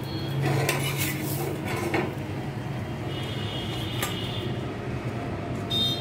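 Steel spatula scraping and clinking on a griddle and a stainless-steel steamer plate as flat ragi cakes are lifted and set down, in a few separate short clatters.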